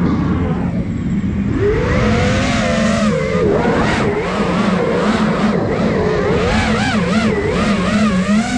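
Brushless motors of an iFlight Nazgul Evoque F5 HD five-inch FPV quadcopter whining, heard from the camera on the quad, the pitch swooping up and down rapidly as the throttle is worked through dives and turns, over a steady rush of air.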